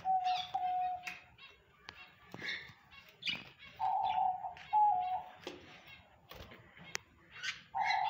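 Caged budgerigars and lovebirds chirping and chattering in short calls. Three times a steady, mid-pitched hooting call about a second long, with a small step in pitch, rises above them.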